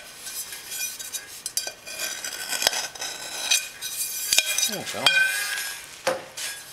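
Metal parts and tools being handled on a metal workbench: a run of sharp clinks and knocks, some left briefly ringing, with a short scrape about five seconds in.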